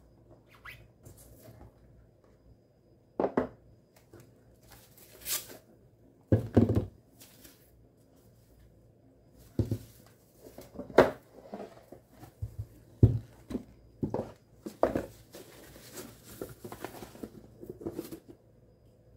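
A cardboard watch box being opened and unpacked by hand: scattered knocks and thumps as the box and lid are handled and set down on a wooden desk, and rustling of packaging near the end.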